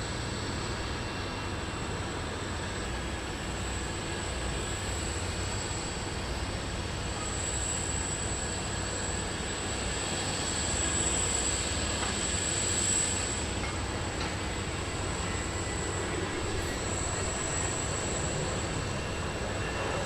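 Jet aircraft engine noise at an airport: a steady rumble with a thin high whine over it, swelling slightly about ten to thirteen seconds in.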